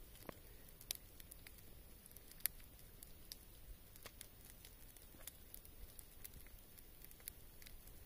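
Wood campfire crackling faintly, with irregular sharp pops scattered through and a few louder snaps.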